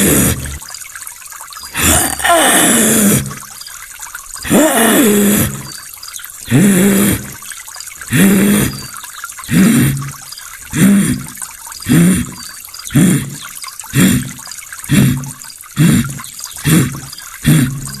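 A man imitating a Tanzanian wild animal's call with his voice: a long series of calls, each falling in pitch. They start about a second long and two seconds apart, then grow shorter and quicker until they come a little faster than one a second.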